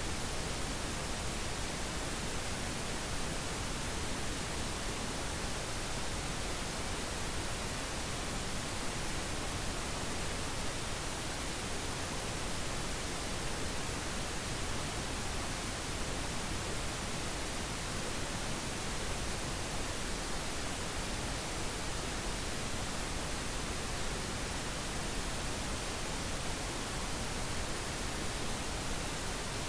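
Steady synthetic pink noise: an even, unchanging hiss spread across the whole range, with no breaks or events.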